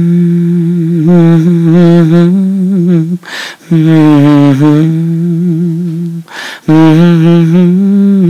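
A man humming three long, low held notes, with a short breath between each. The pitch wavers slightly within each note.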